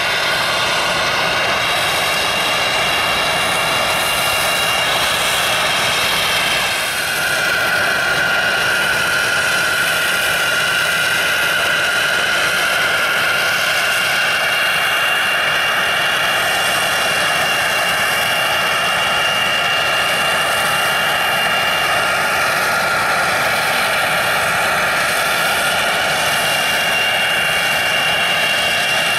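Jet aircraft engines running with a steady whine over a rushing noise. About seven seconds in the sound changes abruptly to a different steady jet whine with one high tone held level.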